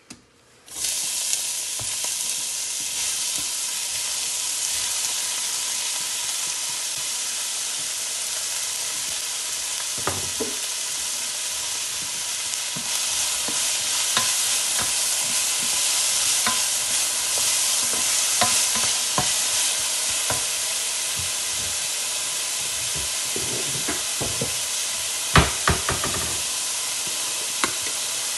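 Chopped green beans and onion dropping into hot oil in a stainless steel sauté pan and sizzling steadily. A plastic spoon scrapes and knocks against the pan now and then as they are stirred, with the loudest knocks about three-quarters of the way through.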